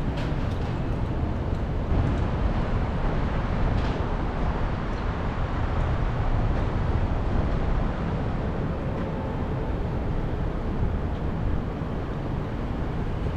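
Steady low rumble of city street traffic and general urban ambience, with no single sound standing out.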